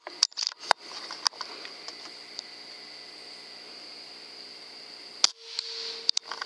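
Scattered light clicks and taps over a steady high hiss. About five seconds in comes one sharp, loud crack, the loudest sound, from a .22 Benjamin Armada PCP air rifle firing a pellet, and the background cuts out briefly after it.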